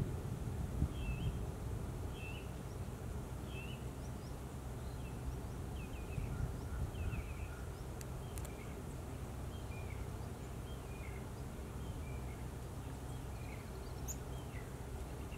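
Outdoor ambience: a small songbird giving short chirping notes, about one a second, over a low steady background rumble.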